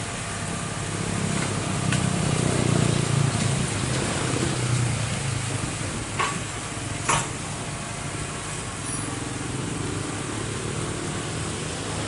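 Hydraulic excavator's diesel engine running, swelling under load for a few seconds and then settling, with two sharp knocks just past the middle.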